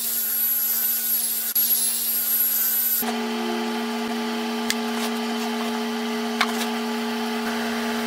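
Cordless drill spinning a sanding pad against a walnut and resin platter turning on a Laguna 1836 lathe: a steady high whine with sanding hiss. About three seconds in, this gives way to the lathe running on its own with a steady low hum and a couple of light clicks.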